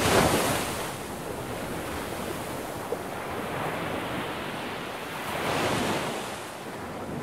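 Ocean surf: waves washing in as an even hiss that swells near the start and again about five and a half seconds in.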